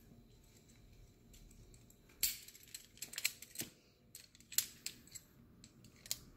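Climbing carabiners and hardware on a sling clicking and clinking as they are handled and clipped: a quiet start, then from about two seconds in a run of sharp metallic clicks at irregular intervals.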